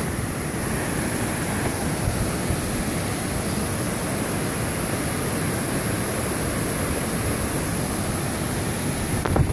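Steady rushing noise, even in level throughout, with a couple of sharp knocks right at the end as the hiker loses his footing on slippery rock.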